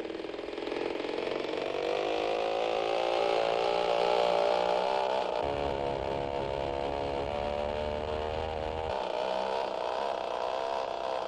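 Small propeller aeroplane engine starting for takeoff. Its drone rises in pitch over the first couple of seconds and then runs steadily, with a deeper rumble added from about five to nine seconds in.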